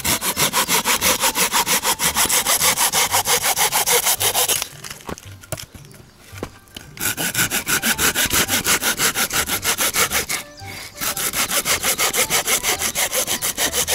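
Folding pruning saw cutting through a dead fallen branch with quick, even back-and-forth strokes, pausing twice: once for about two seconds around five seconds in, and briefly around ten seconds in.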